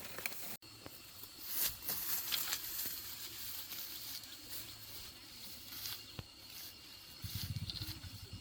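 Rustling and scattered small clicks, then, about seven seconds in, wild boars start a low, rapid grunting.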